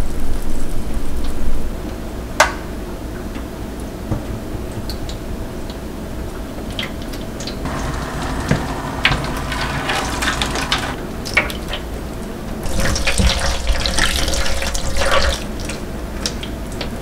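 Hot water poured from an electric kettle over a stainless steel sink, splashing and running on the steel, heavier in two stretches in the second half. There is one sharp knock about two seconds in.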